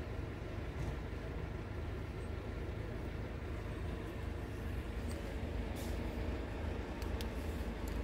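Scania R tractor unit's diesel engine idling, heard as a steady low hum inside the cab. A few light clicks in the second half.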